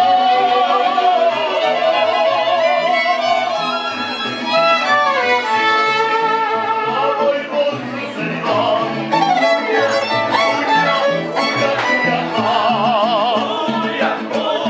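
Live mariachi band playing: violins carry the melody, with wide vibrato in the last few seconds, over strummed guitars and a stepping bass line.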